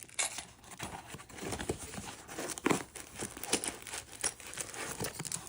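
Plastic packaging crinkling and rustling in handling, with irregular small crackles and clicks, as lock parts are unpacked.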